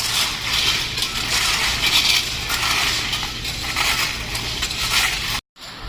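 Railway track construction work: continuous gritty crunching and scraping with uneven surges, over a steady low machine hum. It cuts off suddenly near the end.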